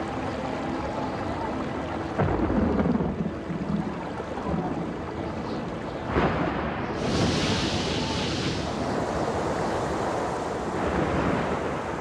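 Storm sound effect: rushing wind noise with two sudden loud crashes, about two seconds and six seconds in, and a hissing gust a little past the middle.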